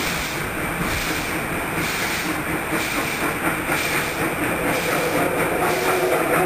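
C17 class steam locomotive working uphill as it approaches: steady hissing exhaust pulsing about once a second, slowly growing louder, with wheel and rail clatter joining in toward the end.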